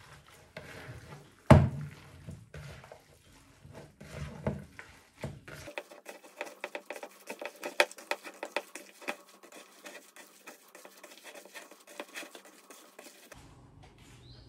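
Kitchen clatter of dishes and utensils: scattered knocks with one sharp loud knock about a second and a half in, then a long run of quick clicks and taps.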